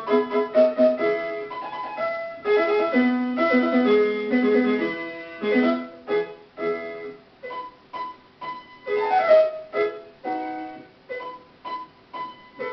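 Piano music: a lively tune played in quick, short notes, which become more detached and spaced out in the second half.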